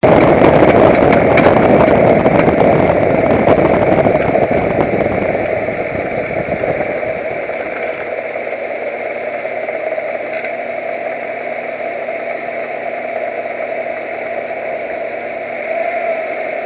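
A pickup truck's engine running with a new noise that appeared after off-road trail driving, which the owner thinks doesn't sound good. It is loud for the first few seconds, then eases to a steadier, quieter running sound.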